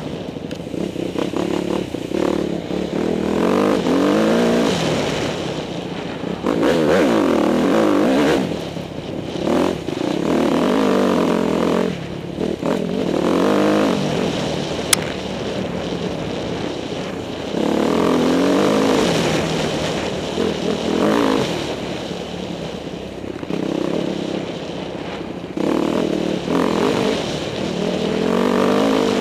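Dirt bike engine being ridden hard, revving up and easing off again and again as it climbs through the gears and backs off. About halfway through there is a single sharp click.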